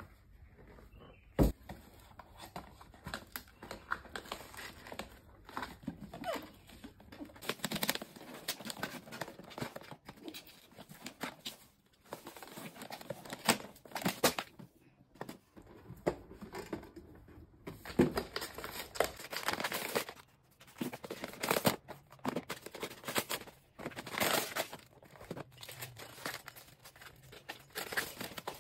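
Hands unpacking a cardboard gift box: lid and packed items knocking and sliding, and paper rustling and crinkling in irregular bursts, with a sharp knock about a second and a half in.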